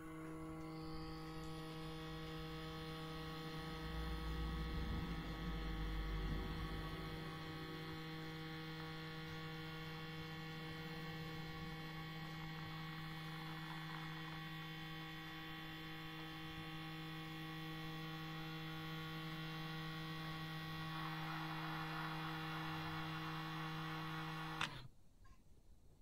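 A motor inside a Whirlpool dishwasher giving a steady electric hum that cuts off suddenly about a second before the end.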